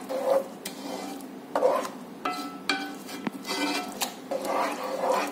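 Wooden spoon stirring thick pea kheer in a granite-coated pot, scraping against the pan in repeated strokes about once a second.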